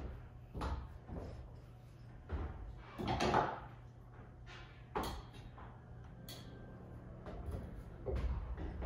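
Dry-tooling ice tools knocking and scraping against plastic climbing holds as they are placed and weighted, a string of irregular clunks with a longer, louder scrape about three seconds in.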